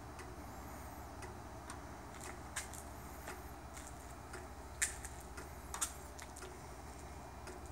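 A series of light, irregularly spaced clicks, the loudest a little before and after the five-second mark, over a steady low hum.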